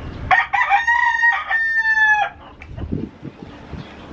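Rooster crowing once, a single cock-a-doodle-doo of about two seconds that starts just after the beginning and ends on a long held note.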